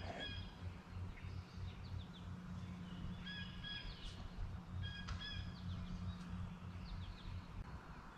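Songbirds singing short phrases of clear high notes, repeated every second or two, over a low steady rumble.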